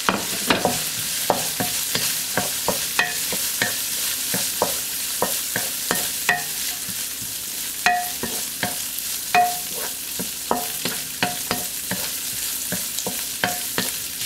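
Ground pork and carrot strips sizzling in a nonstick wok over high heat while a wooden spatula stir-fries them, knocking and scraping against the pan about twice a second at an uneven pace. Some knocks leave the wok ringing briefly.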